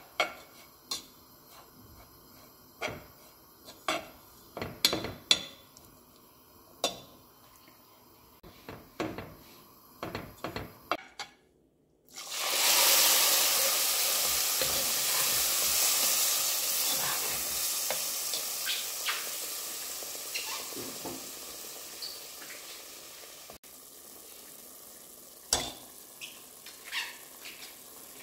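A metal spoon scraping and stirring dry ground walnuts in a nonstick pot, in scattered strokes. After a short break, cold water meets the hot walnuts with a loud, sudden sizzle that slowly dies away over about ten seconds, then a few light clicks of the spoon against the pot.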